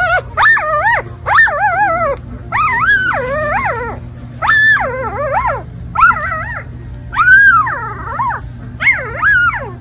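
Very young bernedoodle puppy, eyes still shut, whining and crying in a string of about eight high, wavering cries, roughly one a second.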